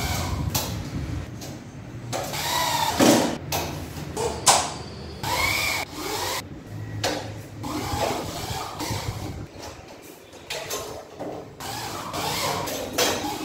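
Corded electric drill driving screws in short bursts, its motor spinning up and down, among sharp clicks and knocks as corner bead is fitted onto gypsum board.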